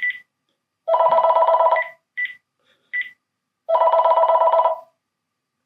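Cordless phone handset (Panasonic KX-TGE633M) ringer sounding in two bursts of about a second each, a fast warbling trill. Short single key beeps come before and between the bursts: the ringer volume is being stepped up and down and the ring previewed.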